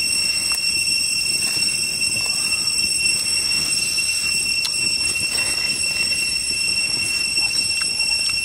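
Steady high-pitched whine of cicadas, several unchanging tones held without a break, with a few faint clicks.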